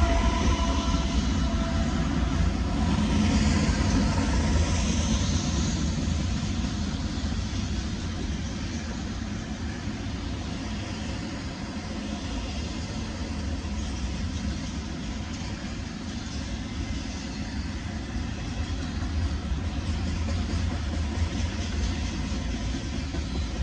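Norfolk Southern double-stack intermodal train rolling past: a steady rumble and clatter of wheels on rail as the container well cars go by. The last locomotive's engine fades in the first second or two, and the sound then eases to an even roll.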